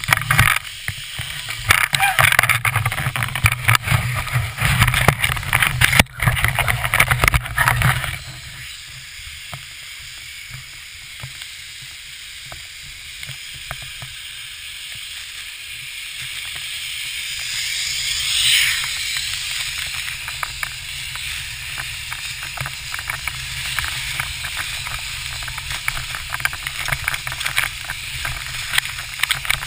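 Wind buffeting an action camera's microphone on a moving skier, heavy and gusty for about the first eight seconds. It then gives way to a softer steady hiss of skis sliding on snow with fine crackles, and one louder swish that falls in pitch a little past the middle.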